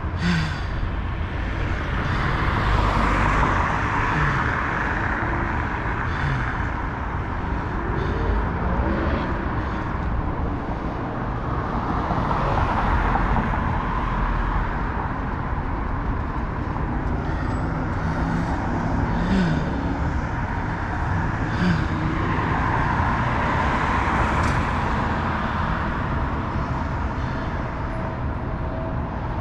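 City street traffic: a steady low rumble of traffic with cars passing on the road, swelling and fading about three times.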